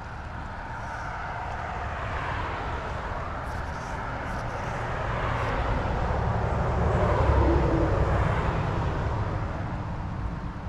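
Engine rumble of a passing vehicle that swells slowly to its loudest about seven seconds in, then fades, over the steady rush of a small creek.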